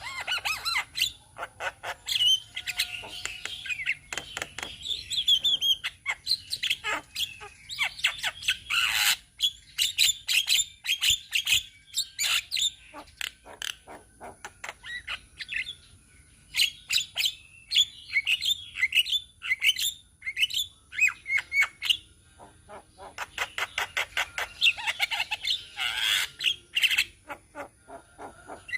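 Several Javan mynas (jalak kebo) calling together: a dense, unbroken chatter of harsh squawks, sharp clicks and whistled notes.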